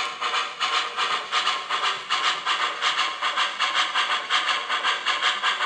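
Sound system of an MTH HO-scale Union Pacific Big Boy 4005 model locomotive playing steam exhaust chuffs at an even rhythm of about four a second, the engine working under way after the proceed signal.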